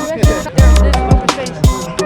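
Hip hop-style background music: a loud beat of deep bass kicks that drop in pitch, with sharp snapping hits between them.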